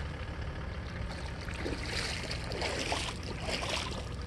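Farm tractor's diesel engine running steadily in the distance while it pulls a truck out of the mud, heard as a constant low rumble across the water.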